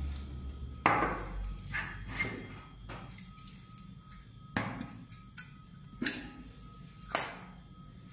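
Kitchenware being handled and set down on a table: a steel lid and a glass jug with a steel band knock and clink about eight times, each strike ringing briefly.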